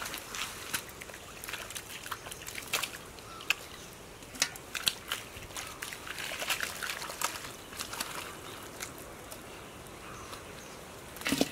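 Hands squelching and slapping through shallow wet mud while groping for fish, with irregular wet clicks, small splashes and trickling water, and a louder splat near the end.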